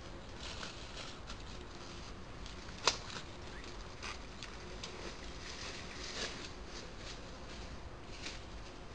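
Footsteps rustling through dry leaf litter as a person walks away on a forest floor, then scattered light crackles and ticks over a steady faint hiss. One sharp click comes just under three seconds in.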